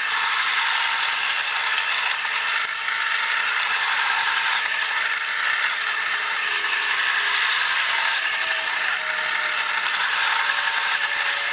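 Electric vegetable shredder running steadily as it grates beetroot.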